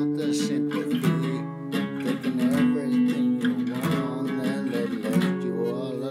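Acoustic guitar with a capo, strummed chords in a steady rhythm.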